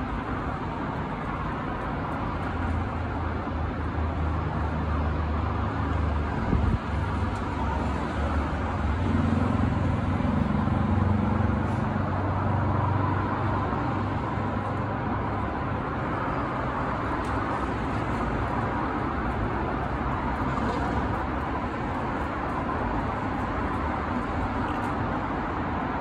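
Steady outdoor traffic noise with a low vehicle engine hum that swells during the first half and then fades back into the steady background.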